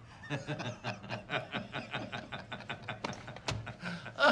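Men chuckling and laughing in quick rhythmic pulses, getting louder near the end.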